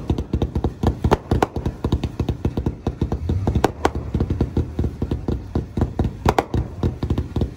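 Wavelength 148-shot compound firework cake firing: a fast, unbroken run of shots and crackling bursts, many a second, with a few louder bangs among them.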